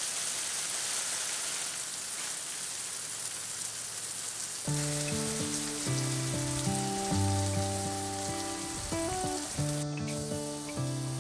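Water hissing from a pistol-grip garden hose spray nozzle as it sprays onto garden plants. About halfway through, background music comes in over the spray.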